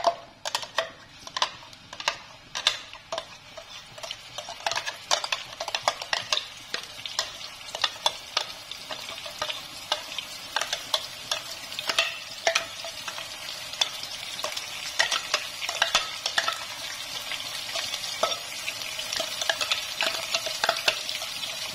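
Ground chili, garlic and tomato spice paste sizzling as it is spooned into hot oil in a wok, the sizzle growing steadily louder. A metal spoon clicks and scrapes sharply, about once or twice a second, as it digs the paste out of a small clear jar.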